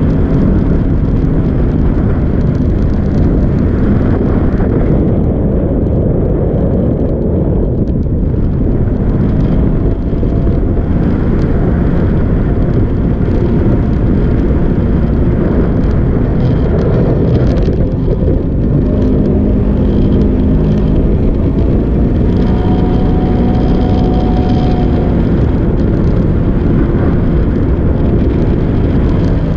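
Jet boat engine running steadily at speed, mixed with water rushing past the hull and wind on the microphone. The engine's pitch shifts a little now and then.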